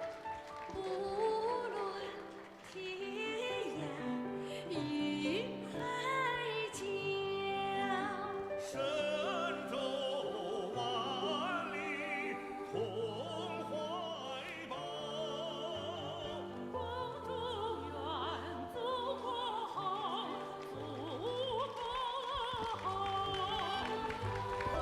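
Music with operatic-style singing: long held notes with vibrato over an accompaniment.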